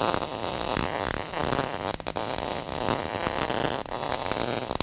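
MIG (gas metal arc) welding arc giving a dense, rapid crackle as the torch weaves side to side, burning a tacked-in ER70S-6 filler rod into a wide gap between steel plates. The crackle briefly drops about two seconds in, then carries on.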